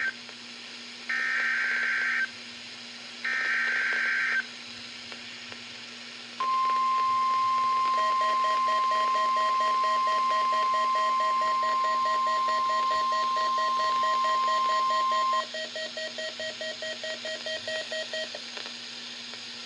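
NOAA Weather Radio Required Weekly Test signal: the last of the one-second digital SAME header data bursts, ending about four seconds in, then the steady 1050 Hz warning alarm tone held for about nine seconds. A rapidly pulsing lower beep starts about eight seconds in and keeps going for a few seconds after the long tone stops.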